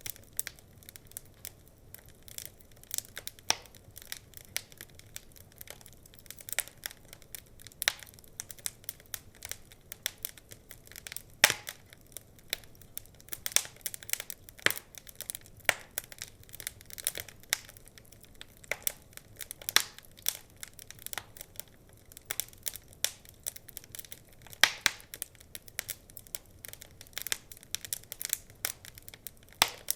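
Wood fire crackling in a fireplace: a steady stream of irregular sharp pops and snaps over a faint hiss, with one louder pop about eleven seconds in.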